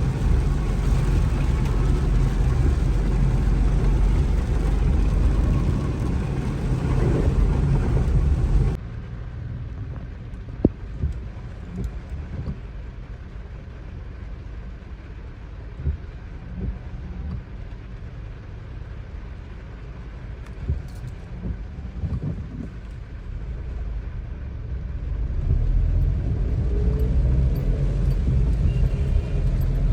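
Vehicle on the move: steady engine and road rumble that drops off abruptly about nine seconds in, leaving a quieter stretch with a few light knocks, then builds up again near the end.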